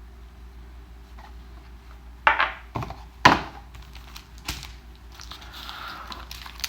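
Bundle box and booster-pack packaging being handled: a few sharp crinkles and knocks about two to three seconds in, then softer rustling.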